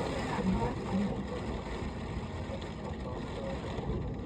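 Steady hiss of heavy rain pouring during a thunderstorm.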